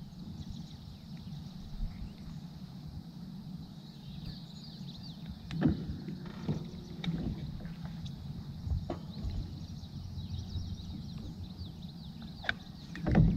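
Steady low rumble of wind buffeting the microphone out on open water, with a few scattered knocks and clicks from fishing gear and the small boat being handled.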